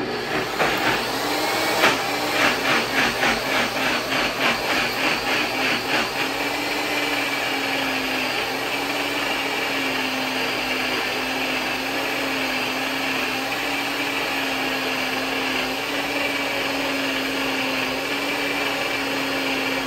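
Kitchen blender motor pureeing a mixture with olive oil for a dip. It pulses about three to four times a second for the first several seconds as the contents chop, then settles into a steady run as the mixture turns smooth.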